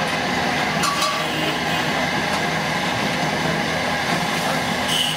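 Steady hum of traffic and machinery, with light clinks of a metal spoon against a plastic dessert glass about a second in and again near the end.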